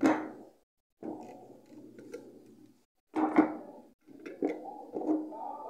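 Handling clicks and knocks as an Intel stock CPU cooler is unclipped and lifted off a motherboard's LGA 1155 processor socket: a few sharp clicks spread through, with quieter rustling between.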